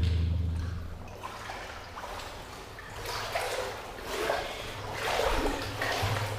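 Water splashing and sloshing in repeated swishes about a second apart, starting about halfway through, like steps wading through a flooded tunnel.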